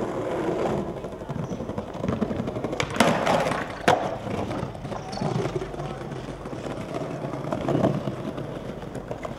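Skateboard wheels rolling over paving stones with a steady rumble, with two sharp cracks of the board striking the ground about three and four seconds in.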